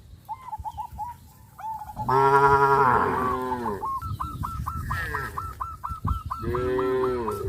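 Cow mooing twice in long, low calls, the second starting near the end. Between and under the moos a bird calls in quick, repeated short notes, about four a second.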